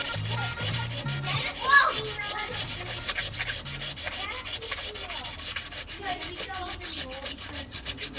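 Sandpaper being rubbed by hand over hardwood knife handle scales in quick, even back-and-forth strokes.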